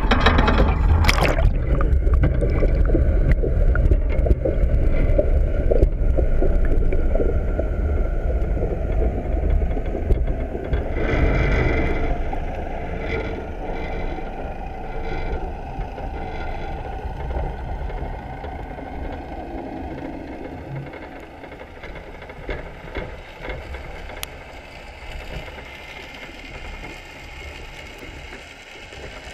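Muffled rushing and gurgling of water over a GoPro's waterproof housing as a wire crab trap sinks, with a few knocks near the start. The noise fades slowly as the trap settles toward the seabed.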